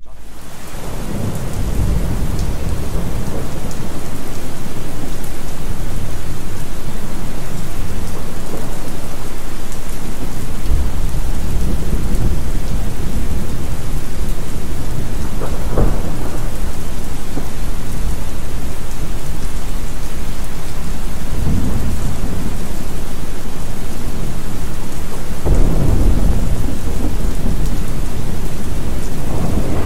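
Recorded rainstorm: steady heavy rain with thunder rumbling several times, fading in over the first few seconds.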